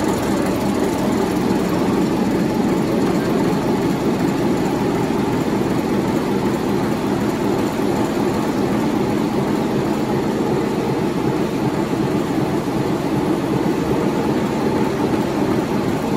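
Large 16-cylinder twin-turbocharged diesel engine running steadily, a loud continuous drone with a rapid, even firing chatter.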